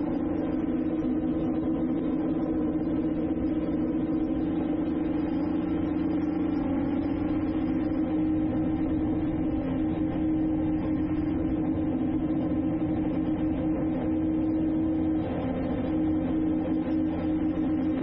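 Drone's electric motors and propellers humming steadily in flight, one even pitch with a brief small dip about fifteen seconds in.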